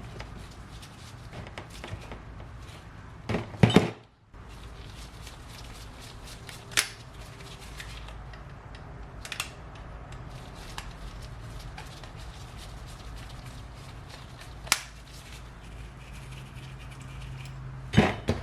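Scattered sharp clicks and knocks of small metal carburetor parts and hand tools being handled and set down while a motorcycle carburetor is taken apart, with the loudest cluster a few seconds in. A steady low hum runs underneath.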